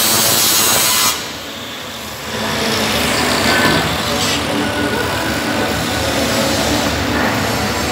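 Angle grinder grinding steel, sparks flying, cutting off about a second in and spinning down. After a short lull a steady noise of about the same loudness comes back and carries on.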